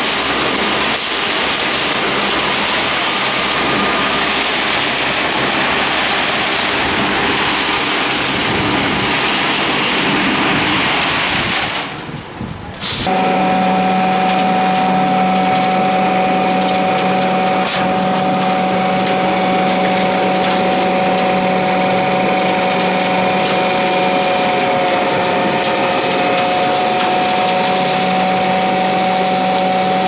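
Atlas RM 1050 mini concrete batching plant running. At first it gives an even rushing noise. After a break about twelve seconds in, it is a steady machine hum with a constant droning tone.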